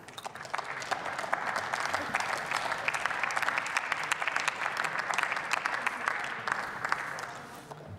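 Applause from the members of parliament in a sparsely filled plenary chamber: a dense patter of clapping hands that thins out and fades away near the end.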